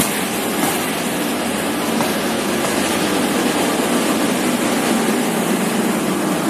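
Passenger train carriages rolling along a station platform: a loud, steady rumble of wheels on the rails.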